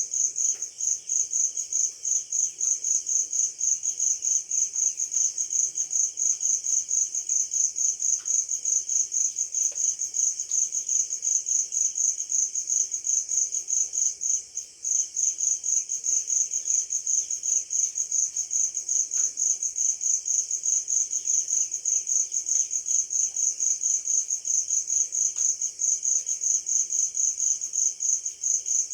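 A cricket chirping in a steady high-pitched pulse, several chirps a second, breaking off briefly about halfway through. Faint bird chirps sit underneath.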